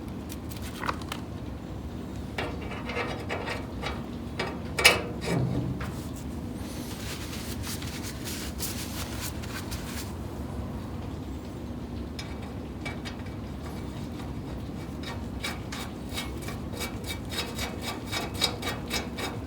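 Hand tools working on a car's front suspension and steering parts: scattered metallic clicks and scraping, one sharp knock about five seconds in, and a quick run of clicks near the end.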